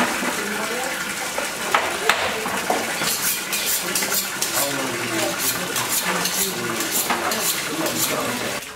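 A filleting knife cutting and scraping through swordfish flesh along the bones, with a rapid run of sharp scraping strokes, about three a second, from about three seconds in.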